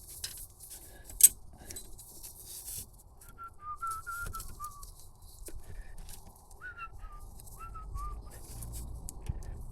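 A person whistling two short runs of gliding notes. Before that come metal clinks and rattles of tools, the sharpest about a second in.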